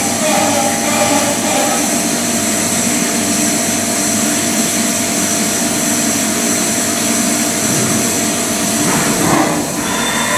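CNC milling machine cutting a metal part under flood coolant: steady machining noise from the spindle and cutter, with the hiss of coolant spray. The sound changes briefly near the end.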